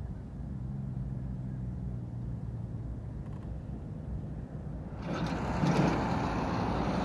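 Low steady hum of an idling motor vehicle engine, joined about five seconds in by a louder rushing noise.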